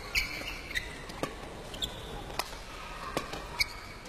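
Badminton rally: sharp racket hits on the shuttlecock at uneven spacing, roughly one a second, mixed with short high squeaks of court shoes on the sports-hall floor.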